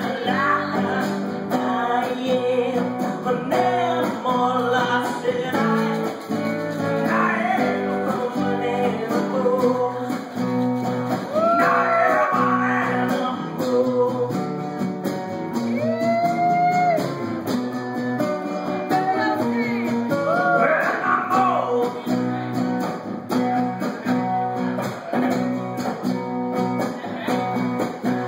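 A two-piece band playing a song live: guitar with a voice singing over it.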